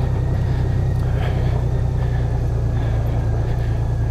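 2018 Honda Gold Wing's flat-six engine running at low speed in a steady low drone, with the tyres rolling over dirt and rocks, and a faint knock about a second in.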